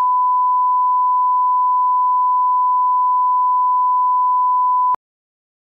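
Steady 1 kHz sine test tone, the reference tone of an audio and video line-up check, cutting off suddenly near the end.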